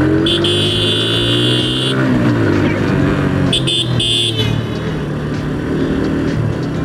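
Motorcycle engine running in traffic, its pitch rising and then falling in the first few seconds, with a high horn sounding one long blast of about a second and a half, then two short toots about three and a half seconds in.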